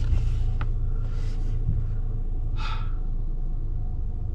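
Steady low rumble of a car's engine and tyres heard from inside the cabin while driving, with a person's short, sharp breath about two and a half seconds in.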